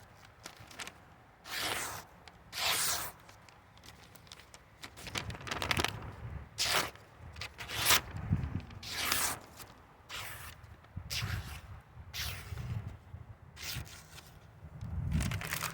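Factory-edge knife blade slicing through a sheet of paper, a series of a dozen or so quick strokes, each a short tearing hiss, as the out-of-the-box sharpness is tested. A low rumble of wind or traffic runs underneath.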